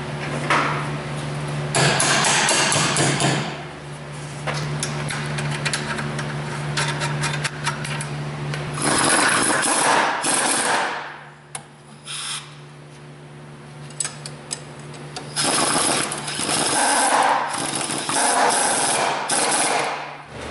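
Impact wrench hammering as it runs down and tightens the rear suspension link bolts at the knuckle. It comes in several bursts, the last and longest lasting several seconds near the end.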